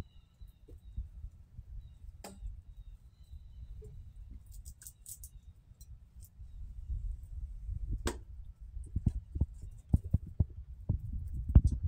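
Low rumble of wind and handling on a phone microphone, with scattered clicks and taps that come thicker over the last few seconds. A faint thin high tone sounds now and then in the first half.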